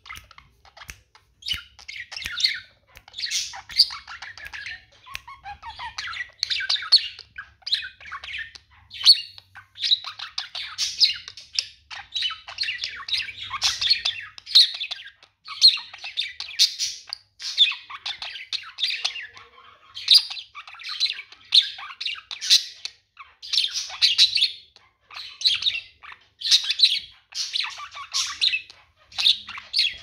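A budgerigar warbling: a fast, continuous chatter of chirps and squawky notes, coming in bursts about once a second.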